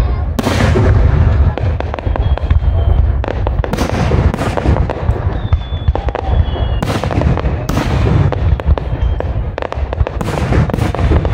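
Aerial fireworks shells bursting in quick succession: many sharp bangs and cracks over a continuous low booming. A few thin, high, slightly falling whistles run through it.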